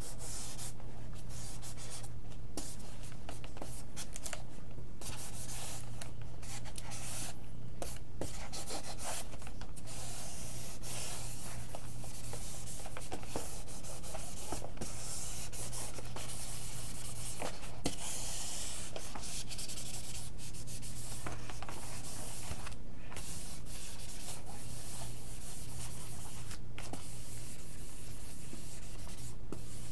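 Sock-covered hobby covering iron rubbing back and forth over a vinyl decal on a foam RC airplane wing, heating the adhesive so the decal sticks again, with a steady low hum underneath.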